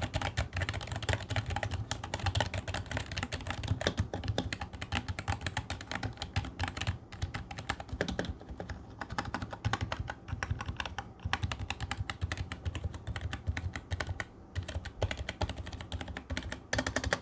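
Continuous rapid typing on an NVC K60 60% keyboard, a membrane keyboard sold as mechanical: soft keystrokes with no clicky noise, almost silent.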